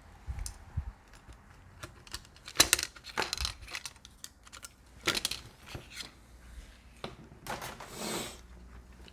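Tools and small parts being handled on an electronics repair bench: a run of sharp clicks and taps, with a short hiss lasting about a second near the end.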